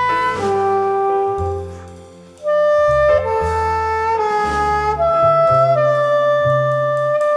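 Background jazz music: a saxophone melody over bass notes, dropping out for about a second near the two-second mark and then coming back in.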